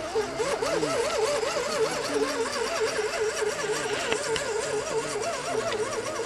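Electric motor and gears of a radio-controlled 6x6 scale truck whining as it crawls up a slope, the pitch wobbling up and down about five times a second.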